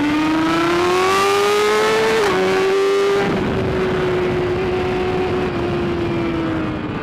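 BMW S1000RR inline-four engine heard from on the bike: revs climb for about two seconds, dip at a gear change, then hold fairly steady and sag slowly, with a steady rush of wind noise underneath.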